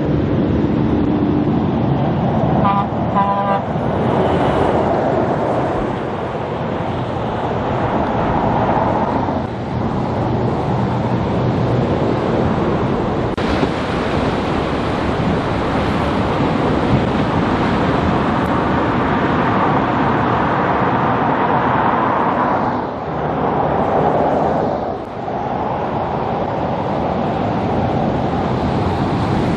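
Heavy trucks and a car driving past on a highway, with engine and tyre noise. A brief horn toot sounds about three seconds in.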